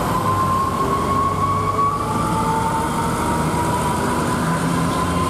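Truck engines running as trucks work round a steep mountain hairpin, with a steady high whine over the top that drifts slightly in pitch.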